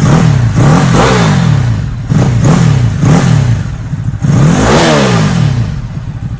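Ducati Hypermotard 950's L-twin engine revved hard in about six quick blips, each rising and falling in pitch and touching the rev limiter, with the engine settling back toward idle near the end.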